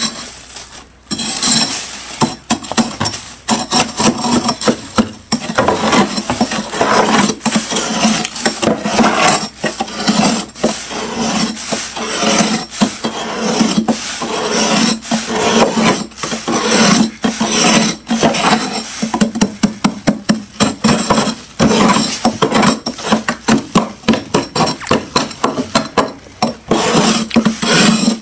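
Thick, packed freezer frost being scraped off the freezer wall with a yellow-handled metal scraper, in rapid, repeated scraping strokes, with loosened frost falling into a plastic bag.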